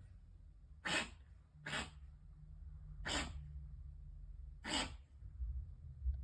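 A pet's strange cough: four short, harsh, sneeze-like bursts, spaced roughly a second apart with one longer gap.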